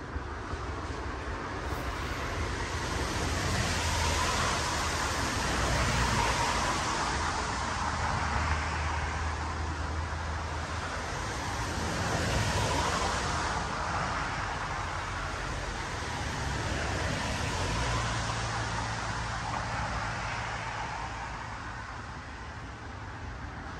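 A rushing outdoor noise with a low rumble underneath, swelling and fading several times.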